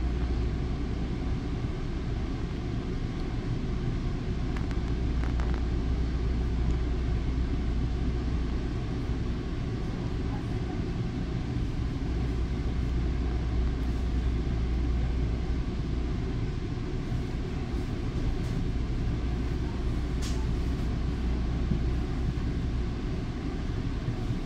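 Steady low hum heard from inside a Bombardier MultiLevel commuter coach standing still at a station platform: the train idling, with no wheel or track noise.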